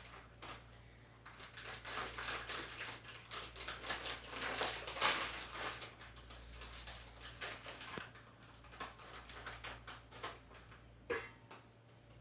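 Rapid run of small clicks and rustles of objects being handled, densest in the first half, with a single sharper knock near the end.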